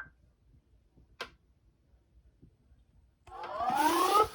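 Weather radio receiver audio between broadcast messages: near silence with a faint click about a second in, then over the last second a loud, buzzy, hissy sound rising in pitch.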